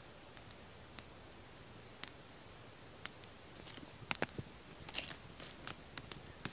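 Campfire crackling, with a few scattered sharp pops at first that come thicker and faster in the second half.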